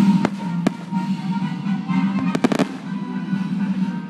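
Aerial firework shells bursting: a couple of sharp bangs in the first second, then a quick cluster of cracks about two and a half seconds in, with music playing steadily underneath.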